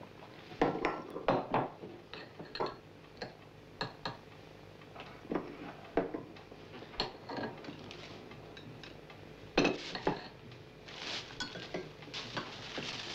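A series of irregular knocks and clinks, some with a short ring, the loudest about half a second in and again near ten seconds; a steady hiss builds near the end.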